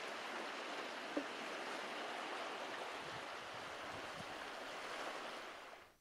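Sea waves washing steadily on the shore, an even hiss of surf that fades out at the end.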